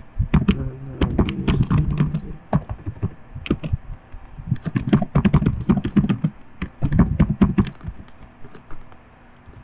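Computer keyboard being typed on in quick runs of keystrokes, with short pauses between words.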